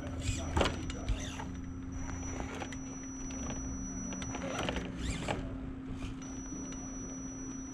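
An Axial SCX10 radio-controlled crawler's electric motor and geared drivetrain whining as it crawls slowly over rock, rising and falling in pitch a couple of times. Scattered clicks and scrapes of the tyres and chassis on the rock run through it.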